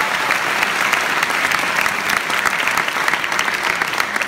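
Audience applauding, a dense round of clapping from many hands.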